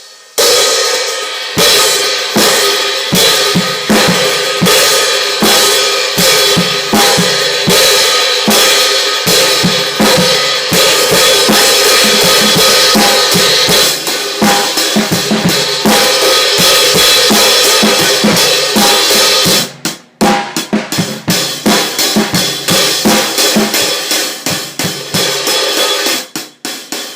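Drum kit played in a steady groove of snare, bass drum and hi-hat under a constant wash from a 16-inch Saluda prototype cymbal. The playing breaks off for a moment about twenty seconds in, then resumes with scattered hits.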